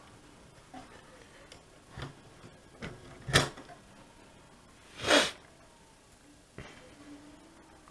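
Handling noise from a VW RNS510 head unit's metal chassis being worked with a plastic pry tool and moved on a wooden table: scattered light clicks, a sharp knock about three and a half seconds in, and a louder half-second rush of noise about five seconds in.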